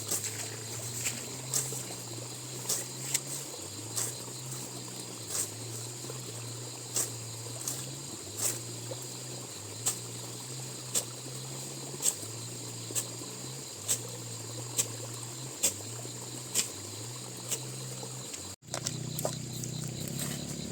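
Sharp knocks at a steady pace of about one a second, over a constant high insect drone. The sound drops out for a moment near the end.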